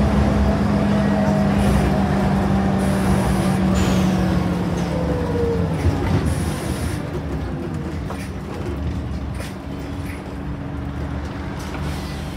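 Scania N94UD double-decker bus heard from the upper deck, its running drone carrying a steady low hum that dies away about halfway through as the bus slows, leaving quieter road noise and rattles.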